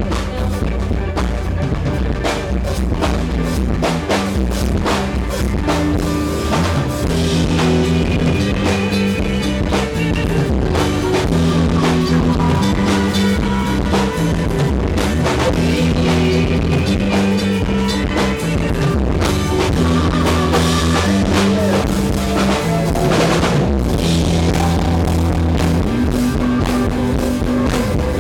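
A live rock band playing an instrumental passage, drum kit and guitars, with no singing.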